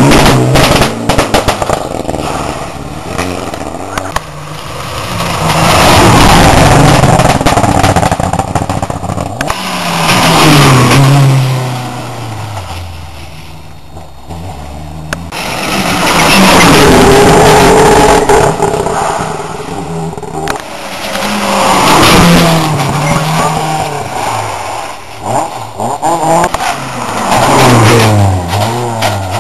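Rally cars passing at speed one after another, each swelling up loud and fading away, about six in all. Their engines rev hard, the pitch climbing and dropping back with each gear change.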